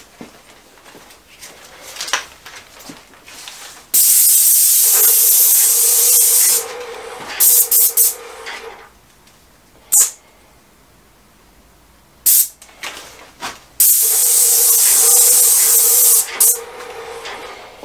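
Graco 495 ST Max II PC Pro airless paint sprayer's gun hissing as paint is sprayed onto a door: two long passes of about two and a half seconds each, with a steady tone under the hiss, and several short trigger bursts between them.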